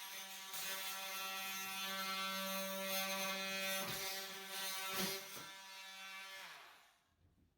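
Electric power tool motor running at a steady pitch, then switched off and spinning down near the end. There are a couple of knocks in the middle.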